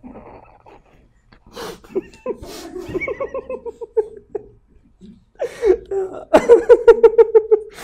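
A man laughing hard in two bouts, each a quick run of repeated ha-ha pulses: the first comes about two seconds in, and the second, louder one comes near the end, with breathy, stifled laughter between them.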